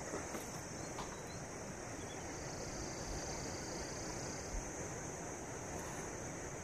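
A steady high-pitched hiss throughout, with a few faint light clicks near the start as a metal stove burner is handled on top of a small LPG gas cylinder.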